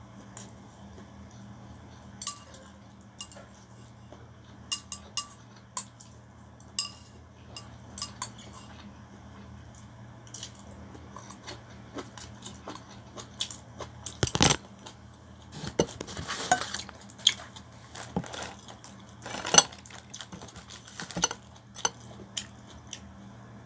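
Chopsticks tapping and scraping against a ceramic bowl of rice noodles: scattered sharp clinks, coming thicker and louder a little past the middle.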